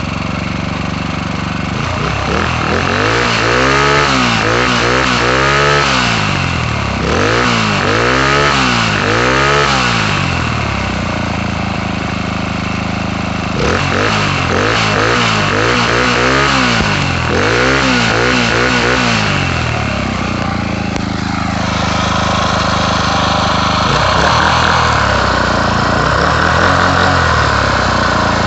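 Modified Predator 212cc single-cylinder OHV engine, fitted with an upgraded camshaft, running just after a warm start. Its throttle is blipped by hand again and again, so the pitch rises and falls in quick revs, in two runs of revs with steady running between them. It settles to a steady idle for the last several seconds.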